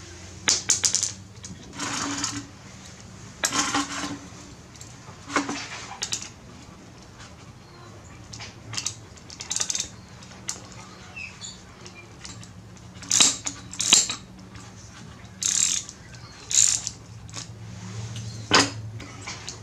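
Hand tools undoing the carburetor bolts on a small weed-eater engine: scattered metallic clicks, clinks and short scrapes, several clusters spread through, over a faint steady low hum.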